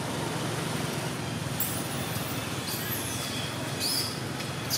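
Steady rumble of road traffic with a low hum. A few short, high-pitched chirps come through in the second half, one of them falling in pitch.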